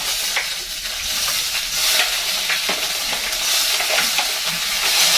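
Spaghetti frying in margarine in a pan, sizzling steadily and growing louder about two seconds in, with a few short knocks and scrapes of a spoon stirring.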